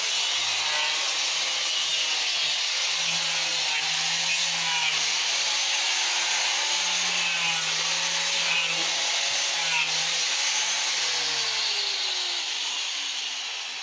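Electric power tool working on a wooden speaker cabinet, a steady loud rasping noise over a wavering motor hum; the motor winds down near the end.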